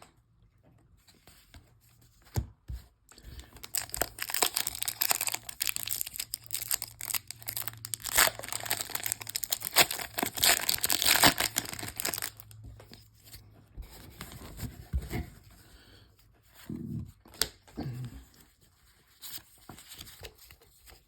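Foil wrapper of a Pokémon TCG Crown Zenith booster pack being torn open and crinkled: a dense crackling stretch of several seconds, followed by softer rustling as the cards are handled.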